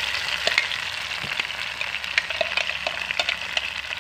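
Freshly added ground chili and garlic spice paste sizzling in hot oil with sliced shallots in a frying pan: a steady hiss with scattered sharp crackling pops.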